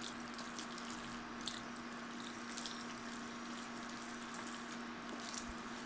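Fettuccine in butter and a splash of pasta cooking water simmering faintly in a stainless steel pan, stirred with a wooden spoon that gives a few soft taps, over a steady low hum.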